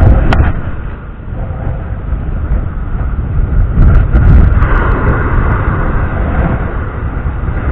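Strong gusting wind, around 30 mph, buffeting the microphone with a loud, uneven low rumble that swells and eases, over the wash of the surf. A single sharp click sounds about a third of a second in.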